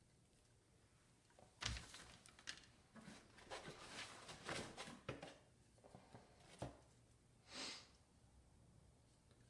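Faint handling noises from unboxing a chrome handlebar speaker: a knock about a second and a half in, then rustling and light clicks of packaging, another knock later, and a short breathy hiss near the end.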